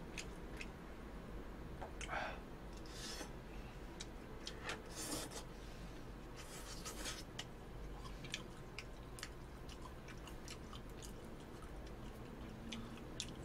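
Quiet eating sounds: chewing, with scattered light clicks and scrapes of a fork in a paper takeout box of spaghetti.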